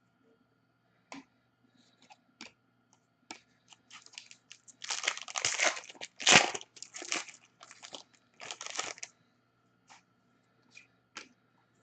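Trading-card pack wrapper crinkling and tearing as a pack is opened, after a few light clicks of cards being handled; the busiest, loudest rustling comes in the middle, then it settles back to scattered clicks.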